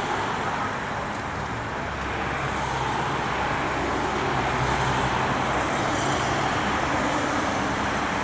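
Cars driving past on a city street: steady traffic noise with a low engine hum, a little louder from about two seconds in.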